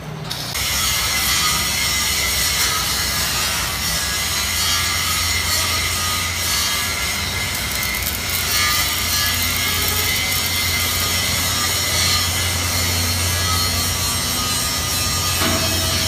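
Electric arc welding on steel: a steady crackling hiss with a low hum under it, starting about half a second in.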